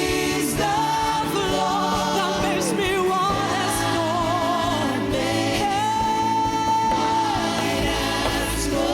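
Live gospel worship band with vocalists singing long held notes with vibrato over keys, bass and drums.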